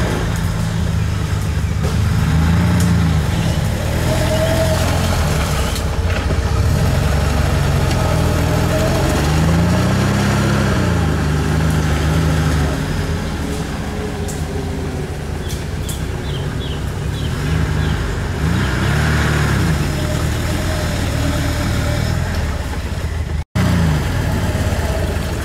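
Off-road vehicle's engine revving up and falling back several times as it works its wheels through deep mud.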